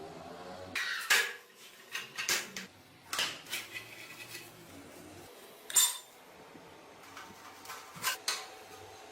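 Metal pieces clinking and knocking in an irregular series of sharp strikes, the loudest about a second in and again near six seconds in.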